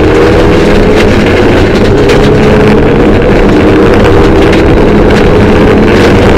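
Mitsubishi Lancer Evolution III rally car's turbocharged four-cylinder engine running hard at a fairly steady pitch, loud inside the cabin, over tyre and road noise.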